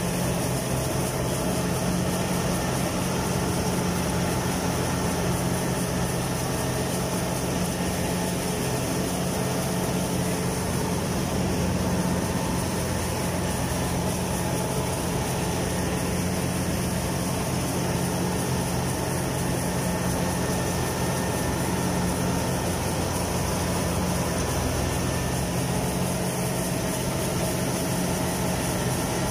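Kubota rice combine harvester's diesel engine running steadily, an even, unchanging drone heard from on board the machine.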